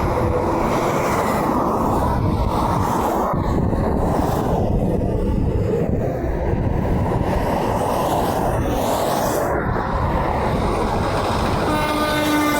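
Steady rumble of heavy highway traffic as semi trucks pass. Near the end a semi truck's horn starts to blow, one held tone that dips slightly in pitch.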